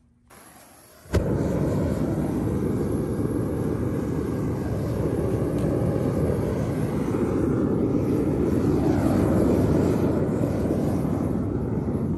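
Propane burner of a Devil Forge melting furnace: gas hisses faintly, lights with a pop about a second in, then burns with a steady loud roar.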